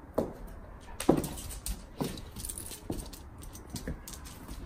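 A dog on a chain collar and leash moving about: five short sounds about a second apart, each falling in pitch, the second the loudest, with light metallic jingling.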